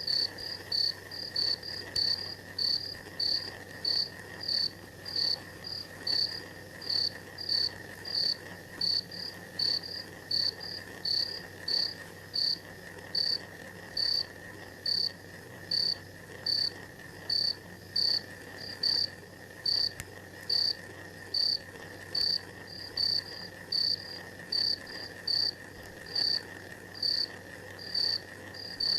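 Insects chirping: a regular high-pitched chirp repeating about twice a second over a steady, lower continuous drone.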